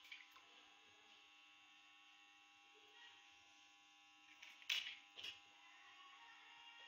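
Two sharp clicks about half a second apart, a little after the middle, from eggshells knocking against china crockery while eggs are cracked into a bowl. A faint steady electrical hum underneath.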